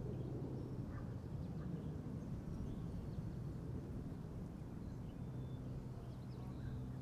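Low wind rumble with the steady low drone of a distant boat engine, which drops out about half a second in and returns about five seconds in; faint, scattered bird chirps sound over it.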